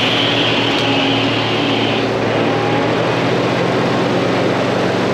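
Kubota KX40 mini excavator's diesel engine running steadily, with a high whine that stops about two seconds in.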